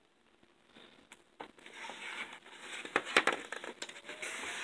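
A picture-book page being turned by hand: paper rustling and crinkling with a few sharp clicks and taps, starting about a second in and loudest near the middle.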